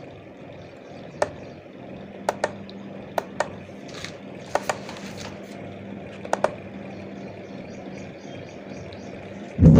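Scattered sharp clicks and small knocks, about a dozen, from hands working a home theater amplifier unit as a USB pen drive is plugged in. Under them runs a steady low hum.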